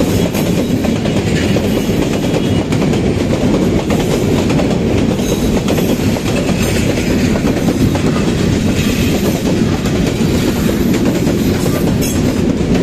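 Bangladesh Railway passenger train passing close by: a loud, steady rumble of the coaches' wheels rolling over the rails, with no break.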